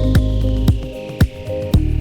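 Background electronic music with a steady beat of about two strikes a second, bass notes and a slowly falling high sweep.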